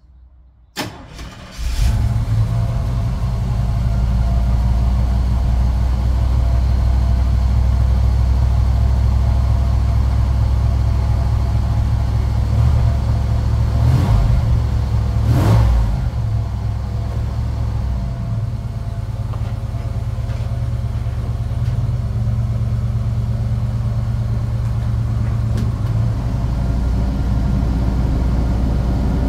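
1992 Chevrolet 2500 pickup engine cranking briefly and starting about two seconds in, then idling steadily. Two short louder blips come about halfway through.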